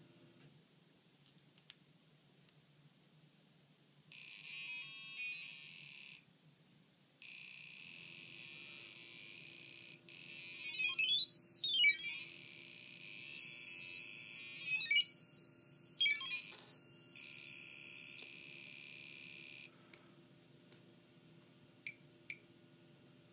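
A DIY Geiger counter's speaker ticking so fast that the counts blur into a high-pitched buzz, with a pause of about a second early on. For about five seconds in the middle a steady high alarm tone sounds over the counts. The buzz stops abruptly, and only a couple of separate clicks follow.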